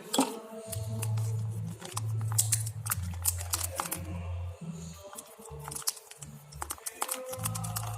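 Slime being mixed in a container after activator is added: a stirrer clicks and taps against the container many times at an irregular pace, over a low droning background.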